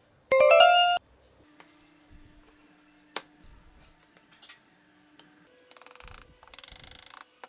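A short, loud chime with rising tones about half a second in, then soft clicks and taps of wooden pieces being handled, and a fast run of ratchet-like clicking near the end.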